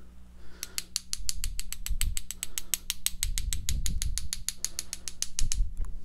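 Two paintbrushes tapped rapidly together, an even run of sharp clicks about eight a second, flicking splatters of wet white gouache off the loaded brush. A few dull low thumps come under the clicks, the loudest near the end.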